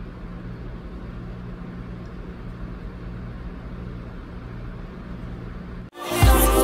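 Steady low electrical hum with faint hiss, room tone with no distinct events. About six seconds in it cuts off abruptly and R&B background music with a beat comes in.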